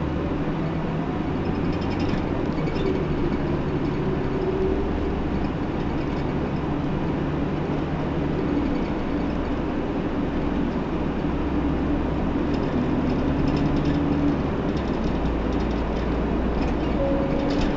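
Interior running sound of a Hino PDG-KV234N2 diesel city bus: steady engine and road rumble, with the engine note rising and falling as the bus drives along.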